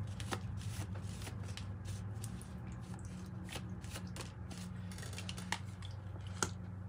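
A deck of tarot cards being shuffled by hand: a run of soft, light card clicks and slides, with two sharper clicks in the second half, over a faint steady low hum.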